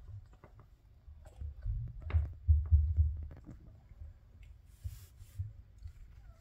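Irregular low rumbling bumps from the phone being handled close to the wire crate, loudest in the middle, with faint wet clicks from a mother cat licking her newborn kittens.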